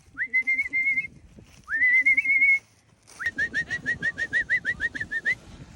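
Sheepdog handler's whistle commands to a working kelpie: two long whistles that swoop up and then warble, then a fast run of short, clipped whistle notes.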